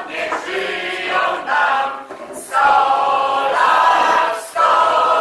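A group of people singing together loudly in unison, in sung phrases with short breaks between them.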